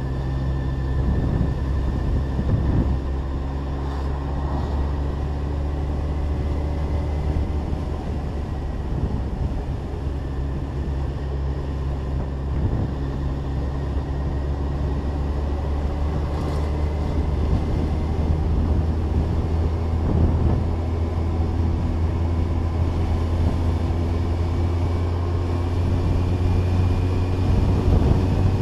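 Kawasaki ZZR 1400 inline-four motorcycle engine running at a steady cruise on the road. Its note holds even, then rises slowly through the second half as the bike gathers speed.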